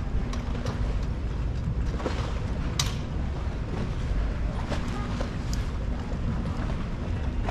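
Wind buffeting the microphone in a steady low rumble, with scattered light taps and clicks through it, one sharper click about three seconds in.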